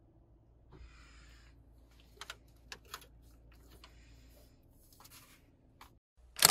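Paper carrier bag rustling and a clear plastic food container crackling and clicking as they are handled, over a faint low hum, with a short much louder crackle near the end.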